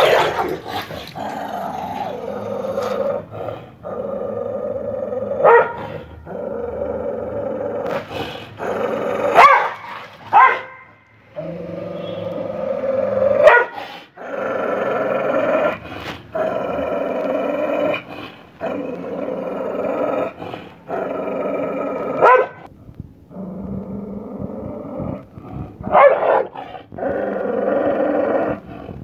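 American pit bull terrier growling in long, steady stretches of several seconds while it tugs at the leash in its mouth, broken by sharp barks every few seconds.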